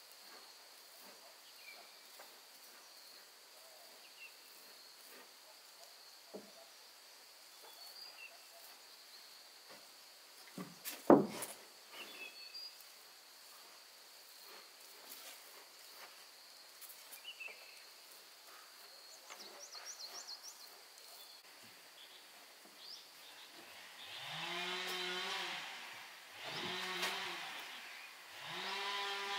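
Outdoor ambience with a steady high insect drone, scattered light knocks and one sharp loud knock about eleven seconds in. Near the end come three short pitched whirs, each about two seconds long, rising in pitch, holding, then dropping away.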